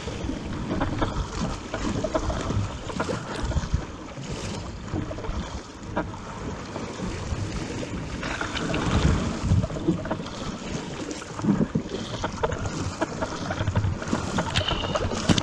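Wind buffeting the microphone over water splashing and sloshing around a paddled surfski at sea.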